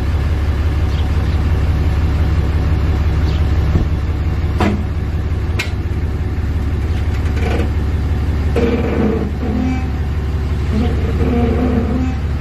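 Pickup truck engine idling with a steady low rumble as the truck reverses slowly toward the trailer hitch.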